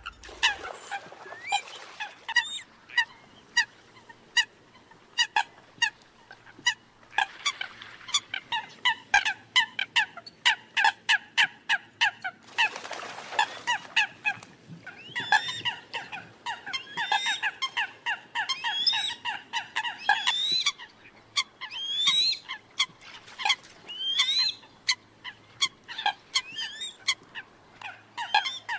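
Eurasian coots calling in a dense, overlapping run of short, sharp calls, several birds at once, some calls bending upward in pitch. A brief rush of noise comes about halfway through.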